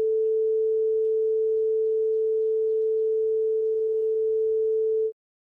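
A single steady, pure mid-pitched tone held without wavering, cutting off suddenly about five seconds in.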